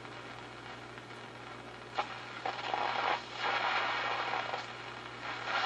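Philco 37-640 tube radio tuned across a shortwave band, its speaker giving steady static hiss over a low hum, with louder swells of noise and crackle from passing signals as the dial is turned. Reception on the band is weak.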